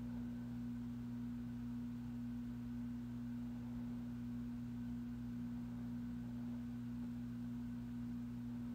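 Steady electrical hum: a constant low tone with a weaker, lower tone beneath it, unchanging throughout.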